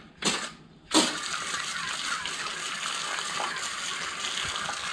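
Gloria FoamyClean 100 pressure foam sprayer hissing as it sprays foam onto a bike frame: two short spurts, then a steady spray from about a second in.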